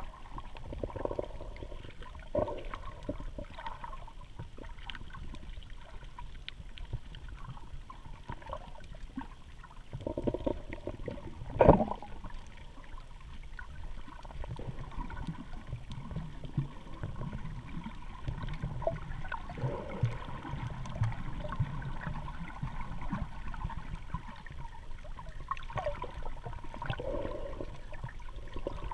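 Muffled underwater sound picked up through a camera's waterproof housing: a steady low rumble of water moving around the case, with scattered small clicks and one sharp knock about 12 seconds in.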